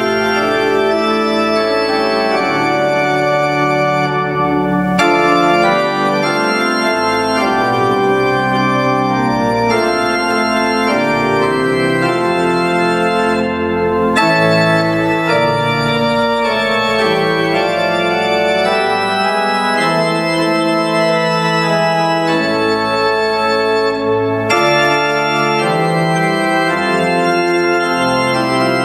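Church organ playing the closing voluntary in sustained full chords that change every second or so, with three short breaks between phrases.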